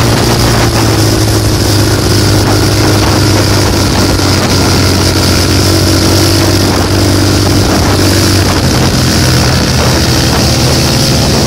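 Motor vehicle engine running at a steady cruising speed, a constant low hum under steady road and wind noise.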